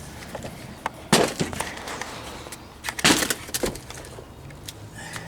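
Wooden planks from an old swing knocking and clattering as they are handled, with two louder clattering impacts, about a second in and about three seconds in, and a few light knocks between.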